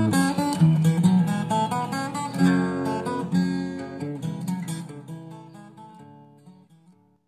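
Steel-string acoustic guitar played fingerstyle: single picked notes and short chords over bass notes. It dies away over the last few seconds.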